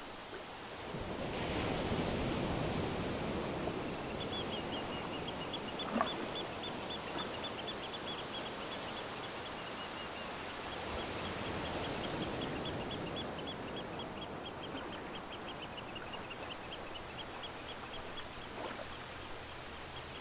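Outdoor nature ambience: a steady noisy background with a bird repeating a short high note about three or four times a second, from about four seconds in. A brief click sounds about six seconds in.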